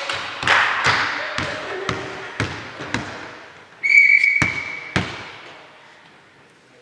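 A volleyball bounced on the sports-hall floor about twice a second, each bounce echoing in the hall. About four seconds in comes a short whistle blast, followed by two sharp hits.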